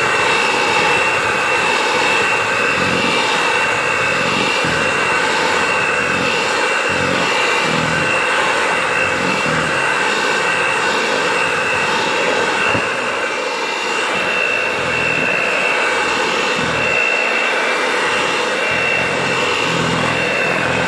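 Electric hand mixer running steadily with a high motor whine, its beaters whipping a thick, creamy pie filling in a bowl.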